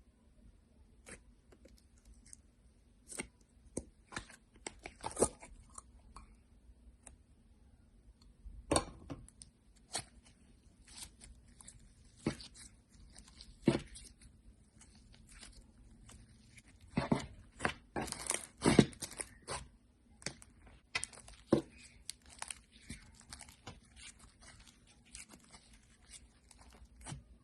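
Crunchy slime being squeezed and pressed by hand, giving irregular crackling pops and crunches. A dense run of louder crunches comes a little past halfway.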